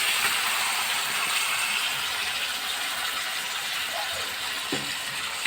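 Tomato juice and fried onions sizzling in hot oil and ghee in a kadai, a steady hiss that slowly dies down, with a couple of light knocks near the end.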